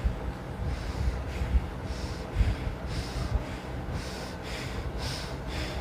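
Forceful rhythmic breathing through the nose in bhastrika pranayama, at a medium pace of about two strong breath strokes a second. A low rumble with a few thumps runs underneath.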